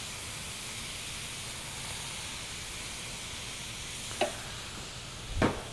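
Shredded zucchini and cream sauce sizzling steadily in a hot skillet, with a couple of brief knocks near the end.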